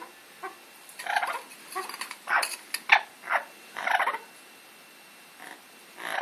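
Amazon parrot making a rapid string of short squawks and chattering calls, irregular in spacing, falling quiet for about a second and a half before calling again near the end.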